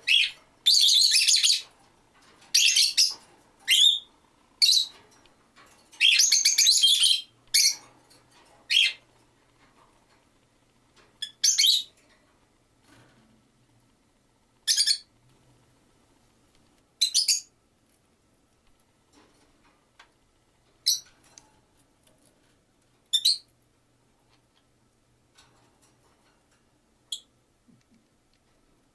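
Caged pet peach-faced lovebirds and budgies chirping. Loud, shrill chirps come in quick bursts for the first nine seconds or so, then single short chirps every few seconds.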